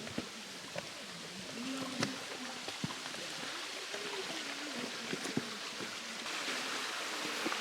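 Mountain stream flowing steadily, a little louder about six seconds in, with scattered light clicks and taps and faint wavering tones in the low range.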